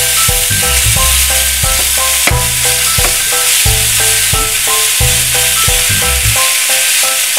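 Salmon sizzling in a hot nonstick frying pan while a metal slotted turner chops and scrapes through the fillets, with an occasional knock of the turner on the pan. Background music with a repeating plucked melody and a bass line that drops out about six seconds in plays over it.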